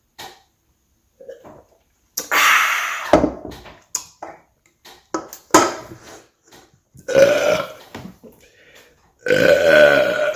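A man burping loudly several times in a row, about four big burps with smaller ones between, the last one long and deep.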